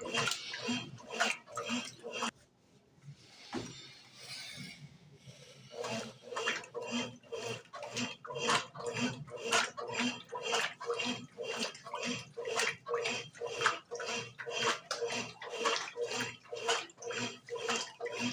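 Brastemp BWG11 top-load washing machine agitating a load in water: rhythmic sloshing and churning, a couple of pulses a second. The pulses pause for a few seconds about two seconds in, leaving a softer hiss.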